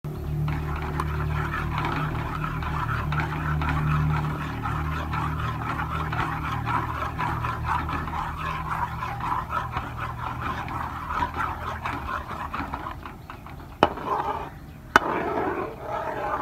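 Egg halwa mixture sizzling in a steel pan over a low flame: a dense, even crackle over a steady low hum that fades out about three quarters of the way in. Two sharp knocks come near the end.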